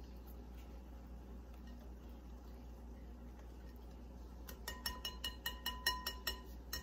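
A utensil clinking rapidly against a bowl, about a dozen ringing strikes in quick succession starting about four and a half seconds in, as beer batter is mixed.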